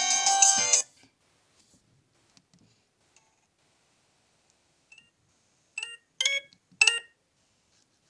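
Sagem my401C mobile phone's polyphonic ringtone playing loudly for about a second, then cutting off suddenly. In the second half come three short electronic beeps from the phone, about half a second apart, as its keys are pressed to move through the ringtone menu.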